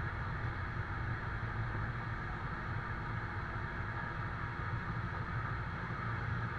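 Iveco GCBA 10/32 fire engine's diesel engine running steadily while driving its fire pump, which supplies a hose spraying water; a constant low drone with an even rushing noise on top.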